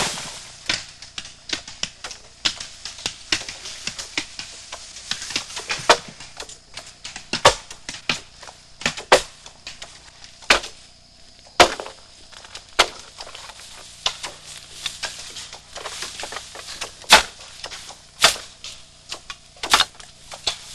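Bamboo stems being chopped by hand: sharp, irregular chopping knocks, roughly one a second, some coming in quick pairs.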